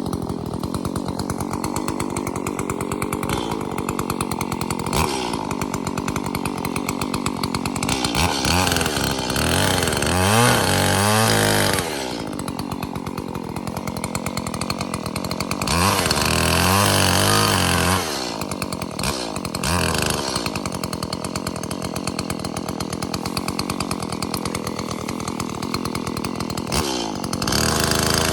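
Chainsaw running at a steady lower speed, opening up to full revs in three loud spells, about eight seconds in, about sixteen seconds in and near the end, while cutting up a fallen ash tree.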